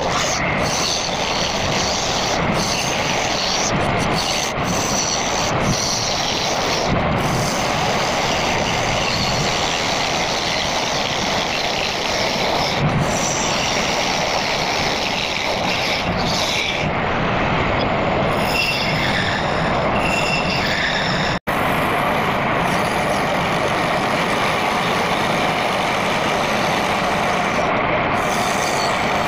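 Wood turning on a homemade lathe: a hand-held turning chisel scraping steadily against a spinning bowl blank of old, weathered scrap wood. The sound drops out for an instant about two-thirds of the way through, then carries on the same.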